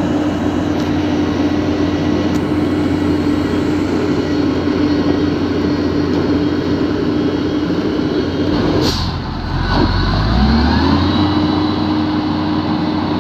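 Steady engine-like drone of a running vehicle. About nine seconds in it breaks off with a short hiss and a low rumble, then rises back up in pitch to a steady drone.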